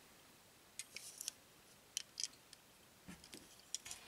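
Faint, scattered small clicks and ticks from hands handling small diecast toy cars and their packaging, coming in a few short clusters.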